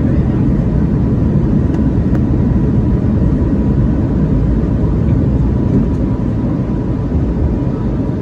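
Cabin noise of a Boeing 717 climbing out just after takeoff: the steady, loud, low rumble of its Rolls-Royce BR715 turbofans at climb thrust and the airflow past the fuselage, with a faint steady whine above it.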